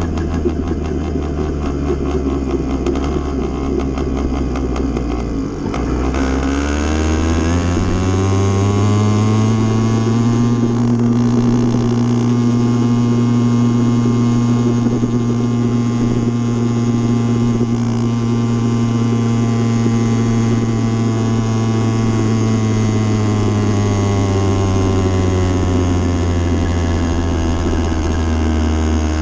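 80cc motorbike engine running under way. Its note dips briefly about five seconds in, climbs over the next few seconds as the bike speeds up, holds steady, then slowly falls over the last several seconds.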